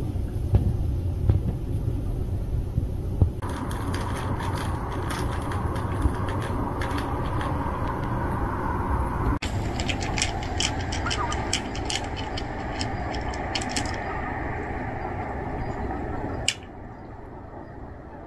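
Wind rumbling on the microphone, with many short sharp clicks scattered over it from a few seconds in. The sound drops off abruptly near the end.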